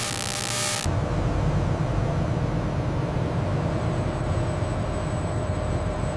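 A loud hiss that cuts off abruptly under a second in, followed by a steady low mechanical rumble with a faint hum above it.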